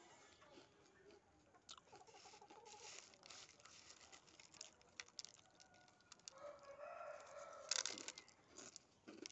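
Faint crunching and chewing of Lay's potato chips, with fingers picking chips off a paper plate, and a sharper crunch just before the end. Partway through, an animal gives a drawn-out call of about a second in the background.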